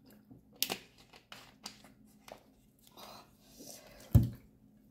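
Thin plastic water bottle crinkling and clicking in the hand as it is handled and capped, then a loud thud on the table about four seconds in.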